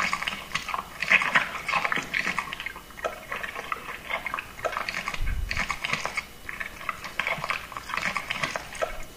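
Wet squelching of fingers squeezing and kneading chunky sauce in a glass bowl, in irregular bursts with short pauses.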